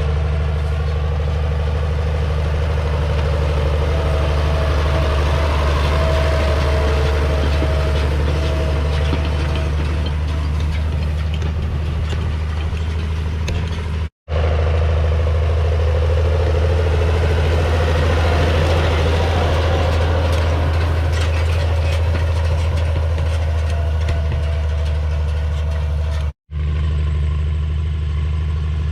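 Farm tractor engine running steadily at a constant speed, with two very brief drop-outs about 14 and 26 seconds in.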